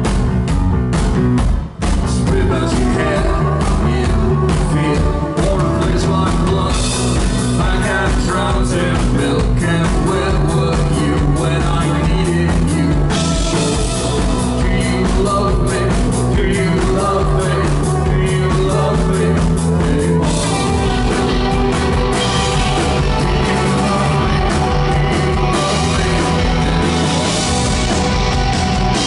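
Rock band playing live at full volume, with electric guitars and drums, recorded from the audience; the music breaks off for a moment about two seconds in, then runs on.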